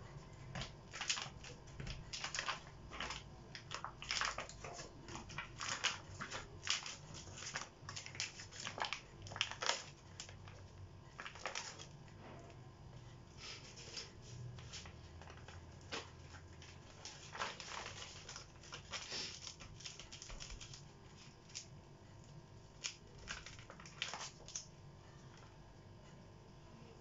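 Crumpled glossy magazine paper crinkling as it is handled and dabbed on wet spray paint, in many irregular short crackles, denser in the first half and sparser later.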